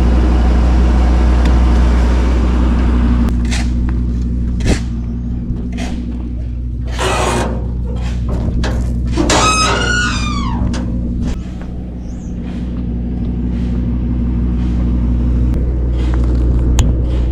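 Truck engine idling steadily, under scattered knocks and clatter of junk being unloaded, with a brief scraping squeal about ten seconds in.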